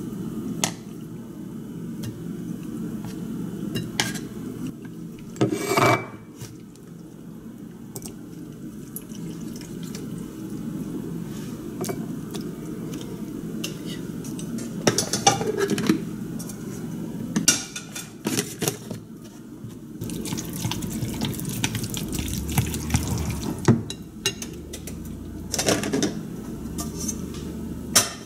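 Kitchen utensil clatter: chopsticks tapping and scraping against a glass mixing bowl and a kimchi jar as kimchi is transferred into pancake batter, in scattered clinks and knocks, over a steady low hum.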